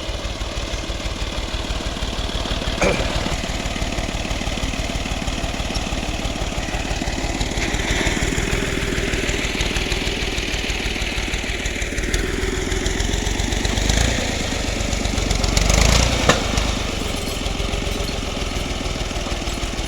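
Ghazi 65 hp tractor's diesel engine running with a fast, even chugging, swelling louder briefly about two-thirds of the way through, with a couple of sharp knocks.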